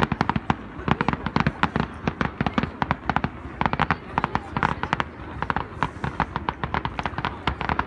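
Aerial fireworks display going off: a fast, unbroken stream of sharp bangs, pops and crackles, many a second.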